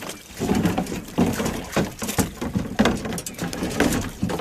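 Dungeness crabs clattering as they are handled and let go, hard shells and legs knocking and scraping against the trap and one another in an irregular run of clicks and knocks.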